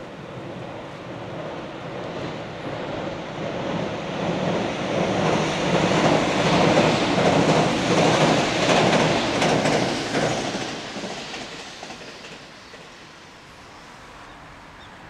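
JR Central local electric train crossing a steel girder bridge: the rolling noise and wheel clatter build as it approaches, are loudest about six to ten seconds in as it passes, then fade away.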